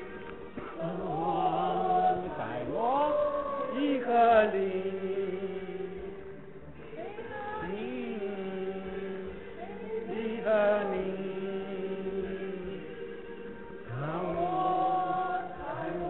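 Background music: a chanting voice sings slow phrases that slide between long held notes over a steady sustained drone.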